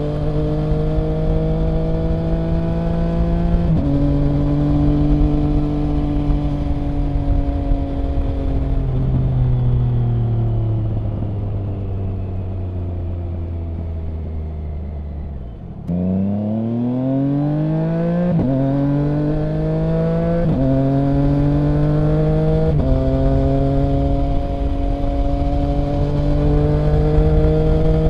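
A 2021 Triumph Trident 660's inline three-cylinder engine through a Mivv Delta Race exhaust, riding. It pulls through one upshift and cruises, then the note falls steadily as the bike slows. About halfway through it accelerates hard again, with three quick upshifts about two seconds apart, then holds a steady, slowly rising cruise.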